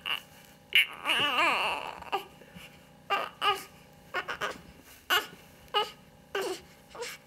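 Newborn baby crying: one long wavering wail about a second in, followed by a string of short fussy whimpers.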